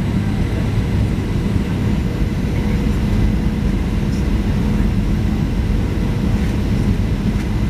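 Steady cabin noise inside a Boeing 737-700 on approach: its CFM56-7B jet engines and airflow making a low, even drone with a faint steady hum through it.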